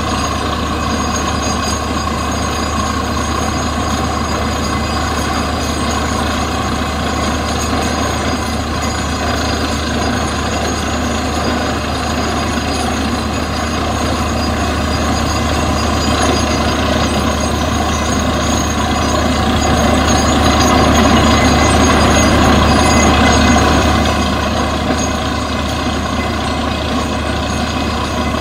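Truck-mounted borewell drilling rig running steadily while drilling, with compressed air blowing dry rock dust and cuttings up out of the bore. A loud, continuous machine noise that swells a little louder for a few seconds about two-thirds of the way through.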